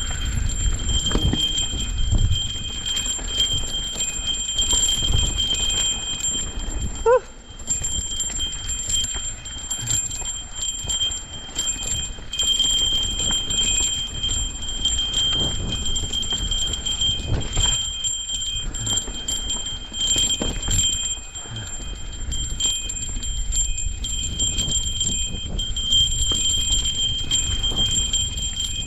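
Mountain bike rattling over a rough trail, with a low rumble and many small knocks throughout and a steady high-pitched tone; a brief rising squeak about seven seconds in.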